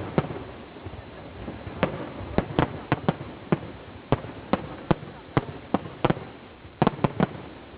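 Fireworks display: shells bursting overhead in a rapid, irregular series of sharp bangs, with a quick cluster of several bangs about seven seconds in.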